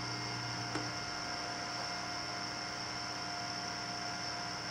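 Steady electrical hum of a running desktop computer, several constant tones held without change, with one faint click just under a second in.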